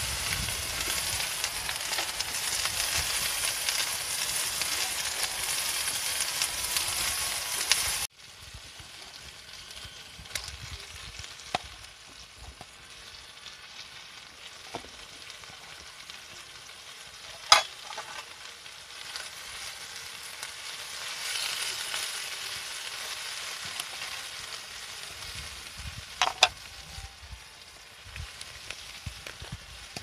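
Chicken pieces frying hard in a skillet over a wood fire, a loud steady sizzle that stops at a sudden cut about eight seconds in. After it a quieter sizzle from the pan, now piled with greens being stirred, broken by two sharp clicks.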